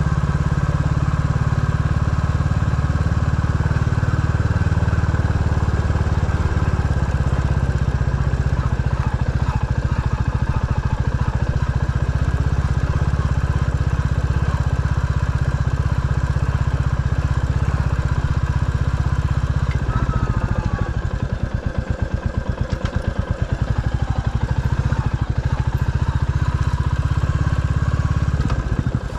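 A vehicle engine running steadily at low to moderate revs while driving a byway. About twenty seconds in the engine note drops and settles to a slower, pulsing run.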